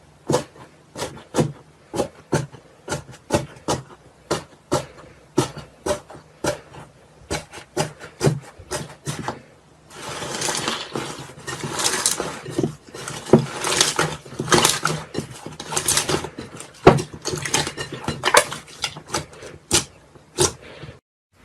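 Slime being worked by hand: sticky pops at about two a second, then from about ten seconds in a denser crackling squish, cutting off abruptly near the end.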